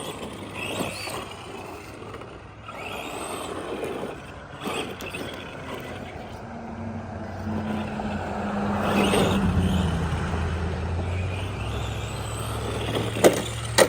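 Arma Granite RC monster truck with a brushed 550 motor running and bouncing over rough ground, with scattered clattering knocks and two sharp knocks near the end.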